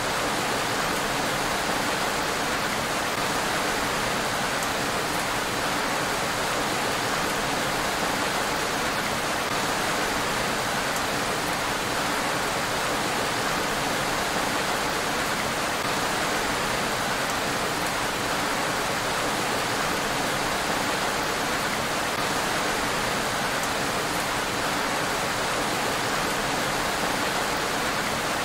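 Rain falling steadily on a road: an even, unbroken hiss.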